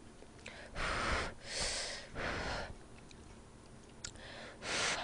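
Slurping jjamppong noodles (spicy seafood noodle soup): three quick slurps in the first few seconds and another near the end.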